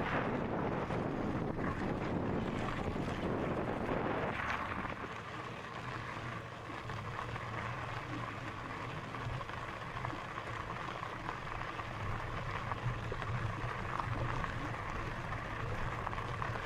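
Wind buffeting the microphone outdoors, heavier for the first four seconds or so, then easing to a steady low rumble with a faint steady whine.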